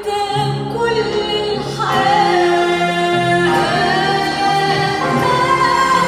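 A woman singing an Arabic song with a live string orchestra and piano. The notes are held long, and the chord changes about every second and a half.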